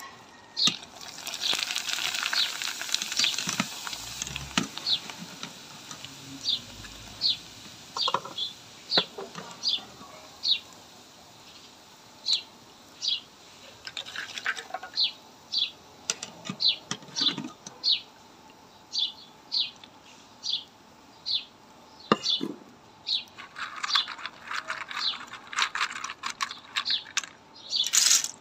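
Papad frying in hot oil in an aluminium karahi: a dense sizzle in the first few seconds, and again near the end as a fresh batch goes into the oil. In between, while the oil is calmer, there is a steady series of short high chirps, about one a second.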